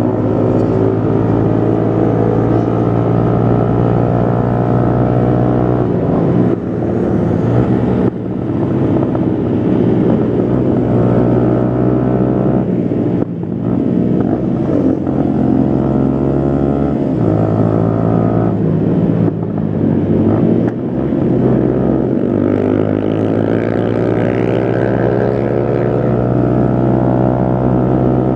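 Motorcycle engine running while riding, its pitch rising and falling with the throttle, with short drops in loudness a few times.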